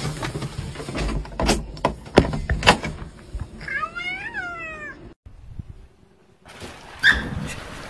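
A ginger domestic cat gives one drawn-out greeting meow that rises and then falls in pitch. A few sharp knocks and clicks from the door being opened come before it.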